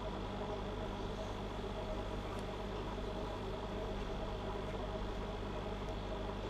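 Steady low hum with a faint high-pitched whine: background room noise.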